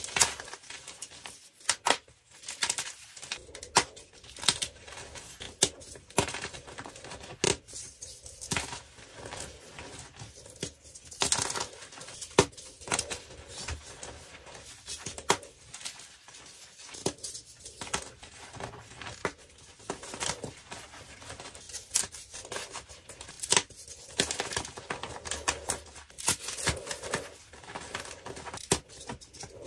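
Blocks of dyed gym chalk crushed and crumbled by hand: a steady run of irregular dry crunches and crackles as the blocks break and powder falls.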